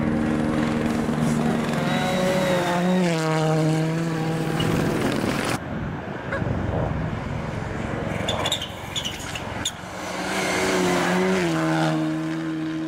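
Rally car engines at full throttle, the pitch climbing and dropping through gear changes as a car passes; partway through the sound changes abruptly, and a second car comes through near the end.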